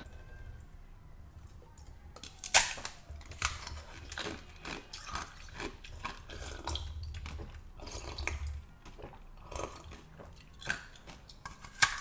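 Sharp, irregular cracking and crunching as a block of blue ice is bitten and chewed close to the microphone, with the loudest crack about two and a half seconds in.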